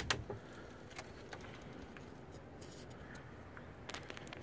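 A few faint clicks and taps from the tilt-in front window of an ARE Z Series truck cap as it is lowered inward after coming unstuck. The sharpest click comes at the very start, with softer ticks about a second in and near the end.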